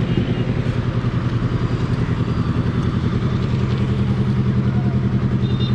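Motorcycle engine running steadily at low revs, with an even, rapid pulsing beat.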